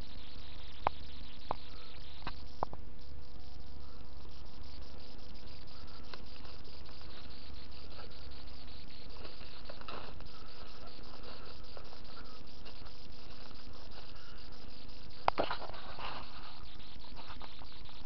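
Occasional snaps and rustles of dry leaves and twigs underfoot over a steady low hum, the sharpest snaps about fifteen seconds in.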